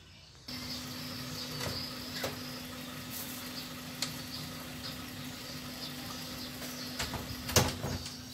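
A wooden door being handled, with a sharp knock near the end as it bumps shut. Under it run a steady low hum and a few light clicks.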